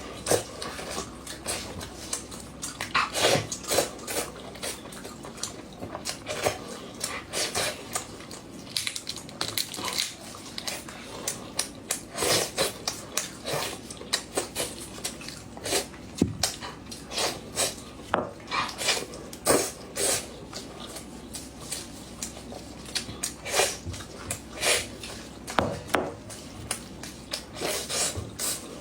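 A person eating close to the microphone: irregular chewing and crunching of fried food, mixed with sharp clicks of utensils against dishes.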